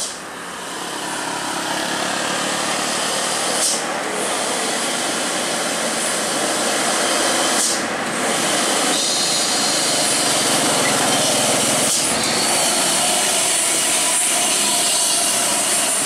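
Hino box truck's diesel engine, a steady drone that grows louder as the truck approaches and passes close by. Two short hisses come about four and eight seconds in.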